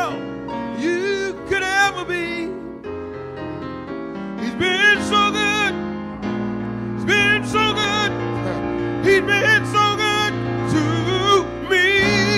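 A man singing gospel into a microphone in long, wavering melismatic phrases without clear words, over sustained piano-keyboard chords.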